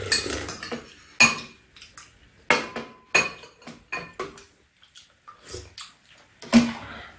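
Metal spoons and chopsticks clinking against bowls and a serving pan during a meal: a scatter of sharp, irregular clinks, the loudest near the end.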